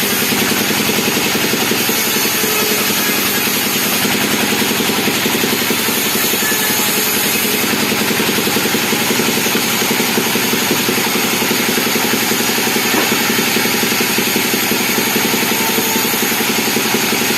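Chainsaw engine running at a steady speed, with no revving up or down.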